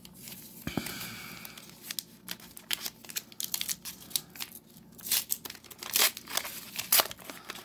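A 1990 Upper Deck baseball card pack being torn open by hand, its wrapper crinkling and crackling in irregular bursts that get louder about five seconds in.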